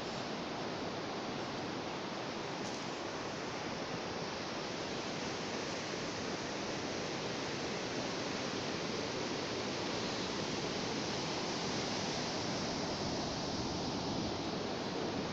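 Sea surf washing on the shore: a steady rushing wash of waves, with no single breaking crash standing out.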